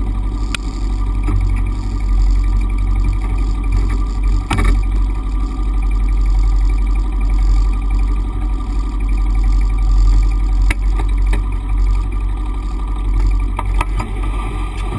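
Honda Pioneer 500 side-by-side's engine idling steadily with a deep hum, with a few sharp knocks scattered through.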